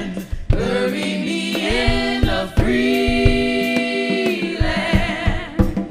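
All-female vocal ensemble singing in close gospel-style harmony: three long held chords with short breaks between them. Soft low thumps sound underneath.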